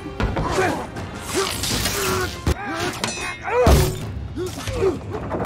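Film fight sound mix: short grunts of effort from the fighters, with blows, thuds and knocks, the heaviest impact coming about three and a half seconds in, over a music score.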